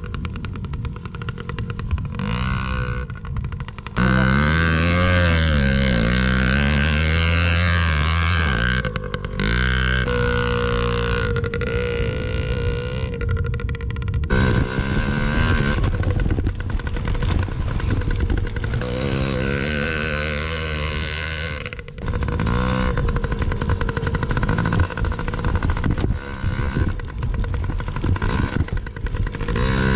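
Yamaha PW50's small two-stroke single-cylinder engine running and revving up and down as the mini dirt bike rides a dirt track. The pitch swings with the throttle, and the sound changes abruptly several times.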